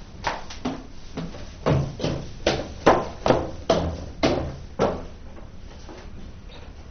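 A series of about a dozen sharp knocks, roughly two a second, growing louder over the first three seconds and stopping about five seconds in.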